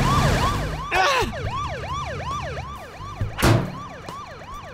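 Police car siren yelping: a fast wail that rises and falls about three times a second. Two short swishes cut across it, about one second in and about three and a half seconds in; the second is the loudest sound.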